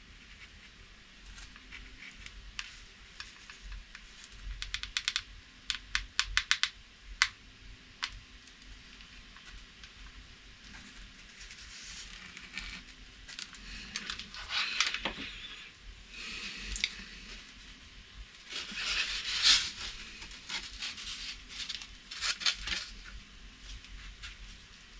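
Hot glue being laid along the foam fuselage of a home-built RC plane: a quick run of small clicks about five seconds in, then scratchy rubbing and rustling of the foam as the glue gun works the joint and the part is handled, loudest a little before the end.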